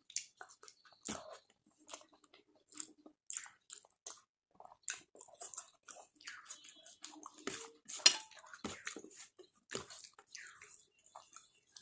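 Close-miked eating sounds: wet chewing and mouth smacks, with irregular clicks and squelches of a mouthful of rice and curry, and one sharper click about eight seconds in.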